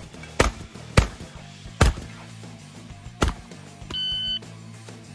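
Four shotgun shots fired in quick, uneven succession, then about four seconds in a half-second electronic beep of the kind a shot timer gives, all over background music.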